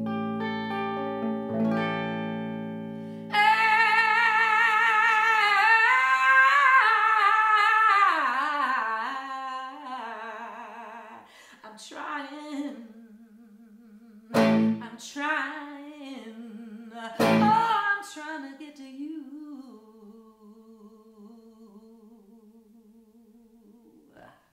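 Slow solo intro on a hollow-body electric archtop guitar. A few single notes ring, then a bright sustained melody line with vibrato starts about three seconds in. Three chords follow, struck one at a time, each ringing on with a steady wobble and fading away.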